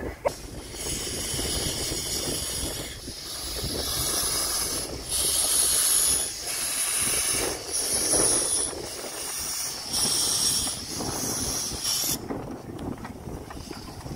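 Steam hissing in repeated uneven gusts from the cylinders of the 15-inch-gauge steam locomotive River Mite as it moves slowly. The hiss cuts off about twelve seconds in.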